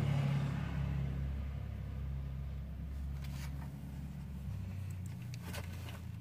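A low, steady hum that shifts down slightly about three-quarters through, with a couple of faint rustles; no hiss is heard from the kitten.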